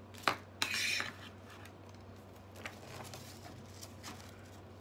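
Items and packaging being handled in a subscription box: a sharp click, then a brief rustle, then a few faint small knocks.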